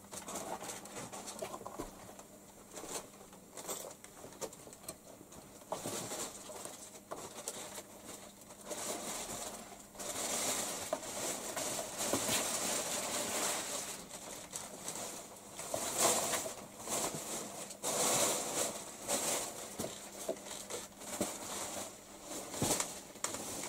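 A kitten's claws scrabbling and scratching on cardboard and wooden boards as it climbs and plays: a run of rustles and scrapes that grows busier about halfway through.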